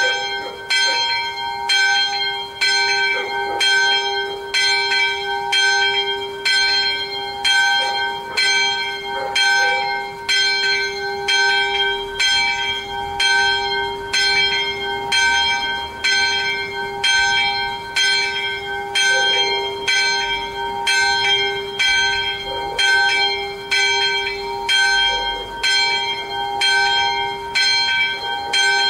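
The sonello, the small church bell, swinging full circle and striking about once a second in an even rhythm, its ring carrying on between strokes. This is the summons rung a few minutes before mass.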